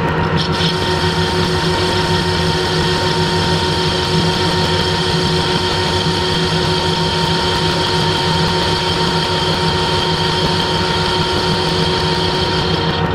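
Metalworking lathe running under power while facing a cast cylinder cover: a steady machine hum with several fixed whining tones.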